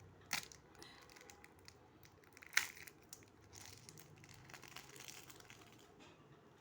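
Pokémon booster pack wrapper being torn open and crinkled: two sharp rips, one just after the start and one about two and a half seconds in, then softer crinkling of the wrapper.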